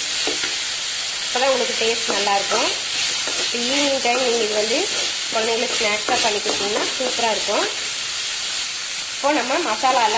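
Chopped onions and tomatoes sizzling in hot oil in a metal kadai, stirred with a metal spoon. The spoon scrapes and squeaks against the pan in repeated bouts over a steady sizzle.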